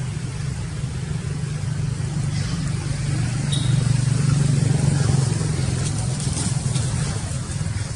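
Low, steady rumble of a motor vehicle's engine running, growing louder a few seconds in and easing off again, with a few faint light ticks.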